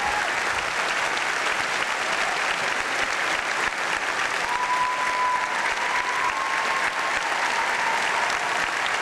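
Large audience applauding steadily, many hands clapping at once. A faint thin held tone rises above the clapping about halfway through.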